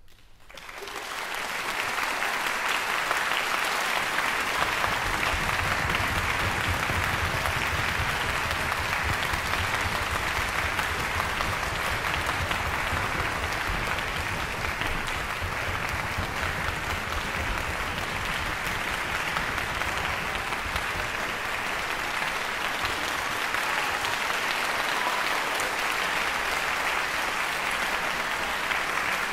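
Audience applauding, swelling up over the first second or two and then holding steady.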